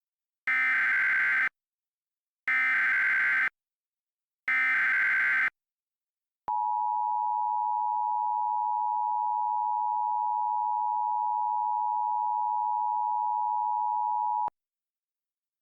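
Emergency Alert System SAME header: three one-second bursts of buzzy digital data about a second apart. These are followed by the EAS two-tone attention signal (853 and 960 Hz), a steady tone held about eight seconds that then cuts off.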